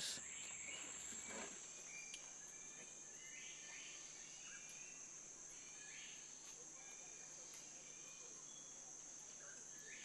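Faint forest ambience: insects droning steadily in a high pitch, with a few faint short chirps.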